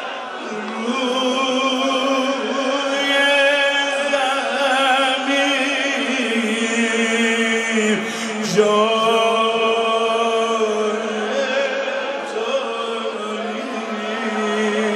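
A man's voice chanting a slow, mournful Persian Muharram lament, drawn out in long held notes with vibrato, the melody shifting to a new note about eight seconds in.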